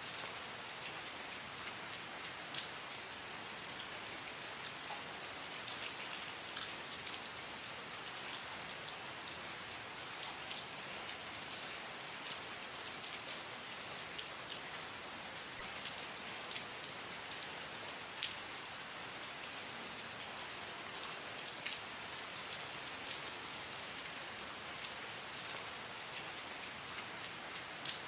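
Steady rain falling, a continuous hiss with many individual drops ticking on a hard surface.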